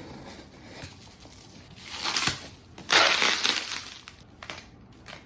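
Parcel packaging being handled and crumpled while it is pulled open, with two louder crinkling bursts about two and three seconds in and a few light clicks and taps near the end.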